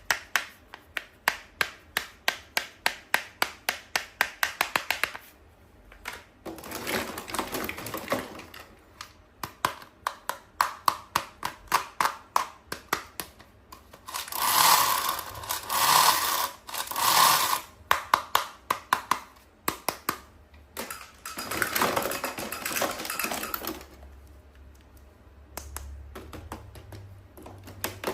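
Toys or packaging being handled close up for ASMR: a fast run of sharp plastic clicks, about five a second, then several stretches of rustling and scraping, loudest about halfway through.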